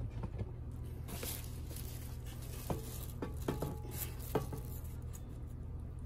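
Light kitchen handling sounds: a few short clicks and clinks around a metal fry basket and the rustle of a plastic bag, over a steady low hum. The clinks fall between about one and four and a half seconds in.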